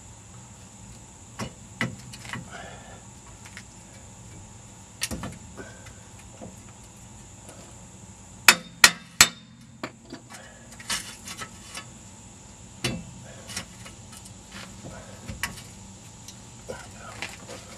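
Scattered metal clinks and knocks as a front wheel hub with its brake guard is slid back into the steering knuckle of a Jeep Grand Cherokee ZJ and lined up for its bolts, with three sharp knocks in quick succession about halfway through.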